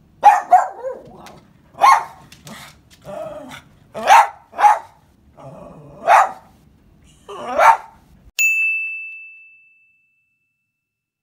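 Siberian husky alarm-barking at someone arriving at the house: loud single barks, one every second or so. Near the end a single bell-like ding rings and fades out.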